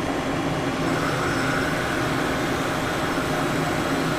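Kitamura CNC mill powered up and running, a steady mechanical drone of its motors, pumps and fans. A faint high whine joins about a second in.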